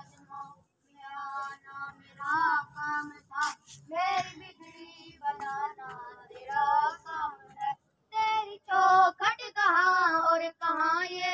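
A single high voice singing an Urdu naat, a devotional song in praise of the Prophet Muhammad, in wavering melodic phrases with vibrato and short pauses between lines. No instruments are heard under the voice.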